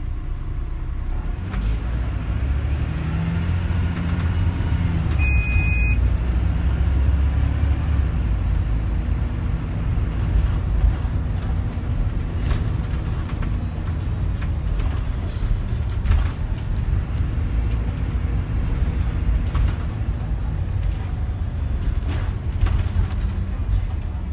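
MAN 14.240 Alexander Dennis Enviro200 single-deck bus under way, its diesel engine heard from inside the saloon, rising in pitch as it accelerates in the first few seconds and then running steadily. A single short high beep sounds about five seconds in, and scattered clicks and rattles follow.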